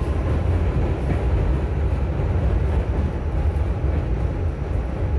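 Steady low rumble of a New York City subway train running on elevated track, heard from inside the car.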